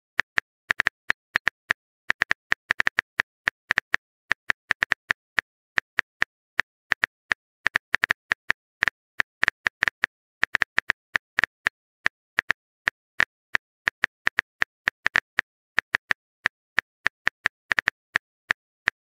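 Typing sound effect: a long run of quick, uneven clicks, like keys tapped on a phone keyboard while a text message is written.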